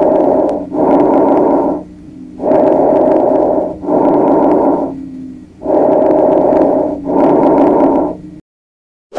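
Breath sounds recorded through a stethoscope: three breaths, each an inhale followed by an exhale, with a low steady tone running beneath them.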